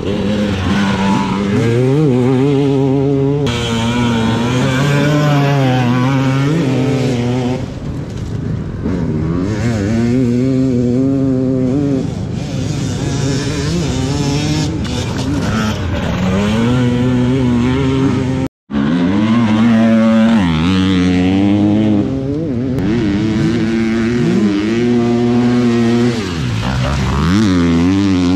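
Enduro dirt bike engines revving hard through the gears as riders race round a dirt cross-test track, the pitch climbing and dropping again and again. The sound cuts out for an instant about two-thirds of the way through.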